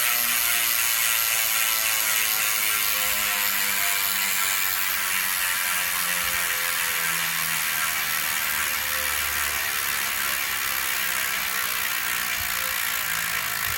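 Trailmech rear hub freewheeling: the pawls give a fast, continuous ratcheting buzz that slowly drops in pitch as the spinning wheel slows. This is the hub's original sound, before it is repacked with grease.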